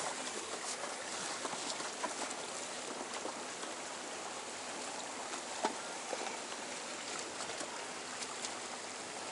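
Steady wash of water lapping against the hulls of a boat and a jet ski drifting side by side, with a few faint clicks and knocks.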